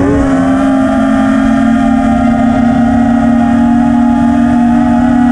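FPV quadcopter's brushless motors and propellers whining, heard from the onboard camera. The pitch climbs slightly in the first half second, then holds steady as the quad cruises at a constant throttle.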